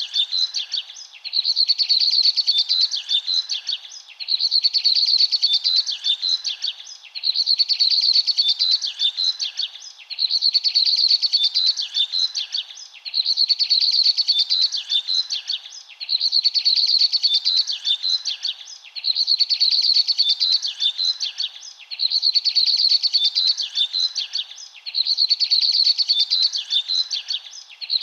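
Bird song: a burst of rapid, high chirping about two seconds long, repeating evenly every three seconds like a loop.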